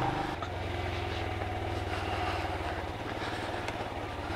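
Royal Enfield Himalayan's single-cylinder engine running steadily at low revs, with no revving.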